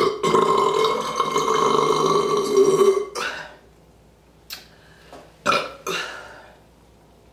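A woman's long, loud burp brought up by chugging carbonated soda, held for about three seconds with a brief catch near the start. It is followed by a few short, noisy puffs of breath.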